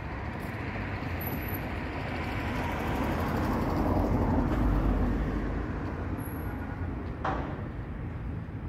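Road traffic: a vehicle passing by, its noise swelling to a peak about halfway and then fading. A single sharp click near the end.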